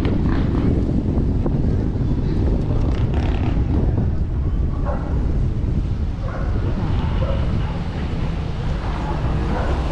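Wind buffeting the microphone, a steady heavy low rumble, with faint voices of passers-by underneath.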